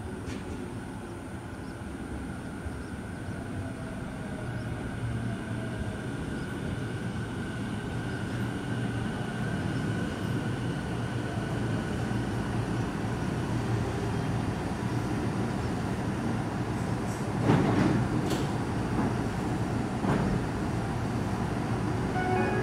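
Tobu 50000-series electric train pulling in and braking to a stop, its motor whine falling in pitch as it slows. About three-quarters of the way through comes a sudden loud hiss of compressed air.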